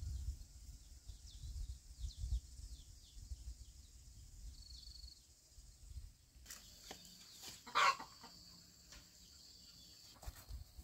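Rural outdoor ambience: a run of short, faint high chirps, then a single brief loud chicken call about eight seconds in, over a steady high hum and a few light clicks.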